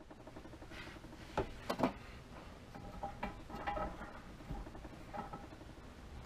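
A few light metal clinks and taps as U-joint parts are handled and set against a driveshaft yoke held in a bench vise. Two sharper clicks come about one and a half and two seconds in, with fainter clinks after.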